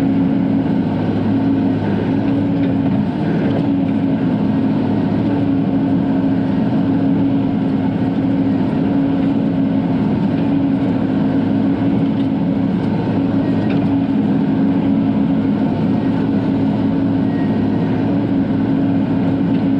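Bobcat E42 mini excavator's diesel engine running steadily at working speed, heard from inside the cab, with a constant hum.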